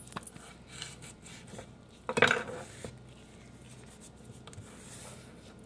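Hand tossing sliced cucumber kimchi vegetables in a stainless steel mixing bowl: soft wet rustling with small scattered clicks against the metal, and one louder knock about two seconds in.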